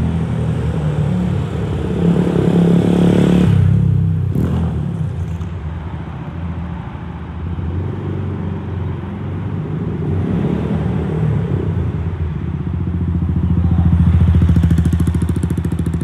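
Yamaha YZF-R125's single-cylinder engine through a Scorpion exhaust with the dB killer out, pulling away in steps as it goes up through the gears and then fading. Near the end it grows louder again, running at low, even revs.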